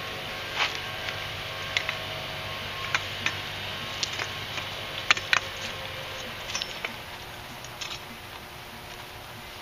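Homemade AC stick welder, built from two microwave oven transformers, striking an arc on a steel mower blade. Scattered sharp crackles and pops come as the rod scratches and catches, over a steady low hum that fades about seven seconds in.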